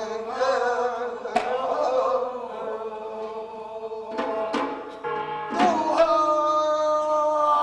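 Korean bi-na-ri blessing chant: a male voice singing long held, wavering notes, punctuated by a few sharp percussion strikes.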